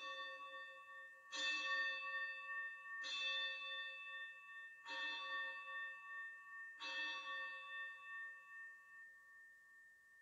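Hand altar bells shaken five times, about one ring every one and a half to two seconds, each ring a bright cluster of tones left to fade. They are rung during the blessing with the Blessed Sacrament in the monstrance. The ringing dies away near the end.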